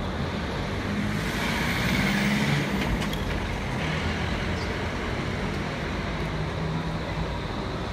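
Steady city street noise with an electric tram running along its rails some way off, a little louder about two seconds in.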